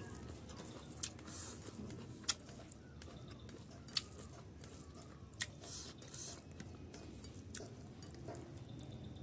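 Close-miked chewing of boiled pork fat and rice, with a few sharp wet mouth clicks spread through it.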